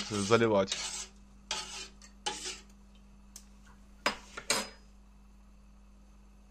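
A spoon stirring brine in a stainless steel pot to dissolve the salt and sugar, with three short scrapes against the pot. A few sharp metal clinks against the pot follow near the middle.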